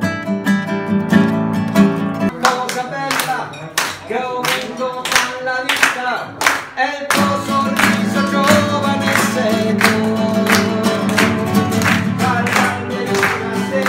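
Acoustic guitar playing under singing. About two seconds in, the guitar gives way to steady hand clapping, about two claps a second, in time with group sing-along singing.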